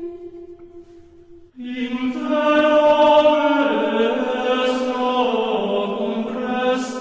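Background music: a slow sung chant of long held notes. One note fades out, and about a second and a half in a new phrase begins, its notes stepping down in pitch.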